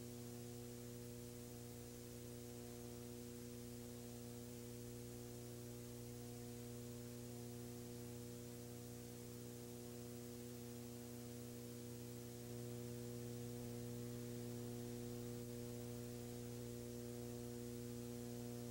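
Steady electrical mains hum with faint hiss on the broadcast audio, and no other sound. It gets slightly louder about two-thirds of the way through.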